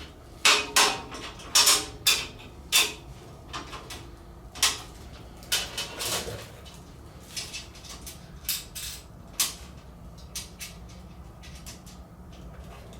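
Steel tool-cart brackets and hardware clanking and rattling as they are fitted onto the cart's posts: a run of sharp metal knocks, thickest in the first few seconds, then scattered clicks.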